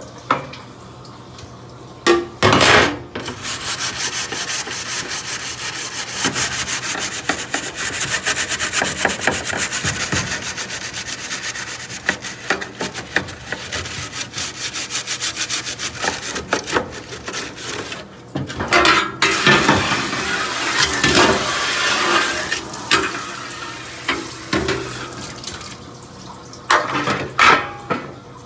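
A refrigerator's metal condensate drain pan being scrubbed clean of corrosion and copper patina: fast, steady rubbing strokes. A few louder knocks and clanks of the pan being handled come a couple of seconds in, about two-thirds of the way through, and near the end.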